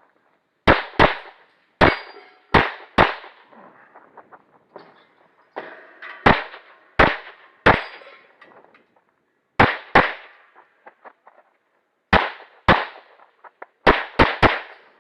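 Semi-automatic service pistol fired in rapid strings: about fifteen shots, mostly in quick pairs and triples, with short pauses of a second or two between groups.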